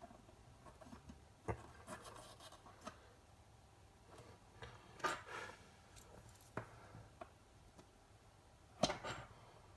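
Faint scattered clicks and rubbing of small tools and parts being handled on a workbench, with a louder scrape about five seconds in and a sharp click near the end.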